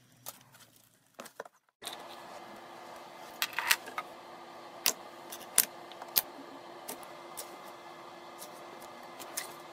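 Slime being squeezed and kneaded by hand, giving a string of sharp clicks and pops. About two seconds in the sound drops out briefly, then a steady hiss sits under the clicks.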